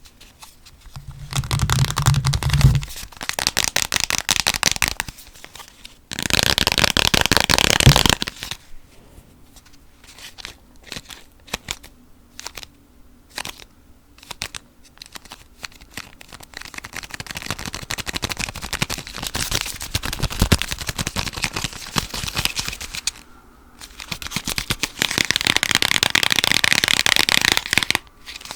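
Fast, aggressive fingernail tapping and scratching on assorted objects, close to the microphone, in dense runs of a few seconds with sparser clicking between them.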